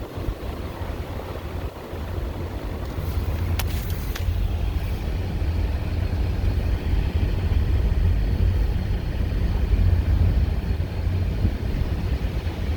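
Car driving, heard from inside the cabin: steady low road and engine rumble that grows louder about two seconds in, with two faint clicks about four seconds in.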